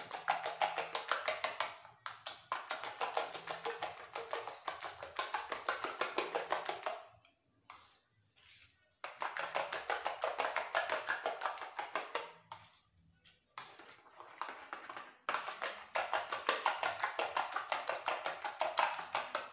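Metal spoon rapidly beating egg mixture in a plastic bowl, a fast run of clicking strokes against the bowl. It stops for about two seconds near the middle and twice more briefly later on.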